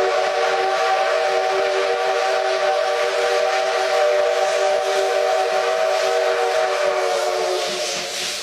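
Japanese steam locomotive's whistle blowing one long, steady blast over a hiss of steam, dying away near the end.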